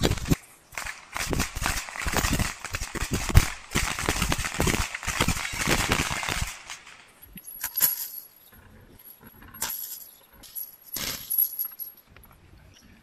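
Gunfire from a line of 9 mm service pistols: rapid, overlapping shots for the first six seconds or so, then thinning to a few scattered reports.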